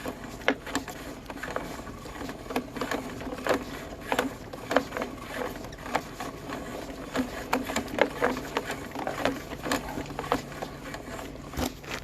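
Sewer inspection camera's push cable being pulled back out of the drain line and fed into its reel, making an irregular run of clicks, ticks and rattles.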